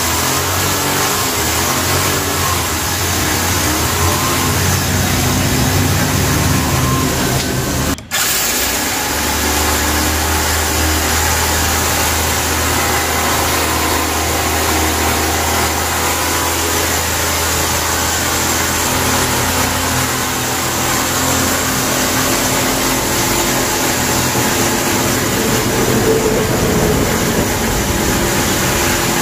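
A small engine running steadily, with a brief dropout about eight seconds in before it carries on.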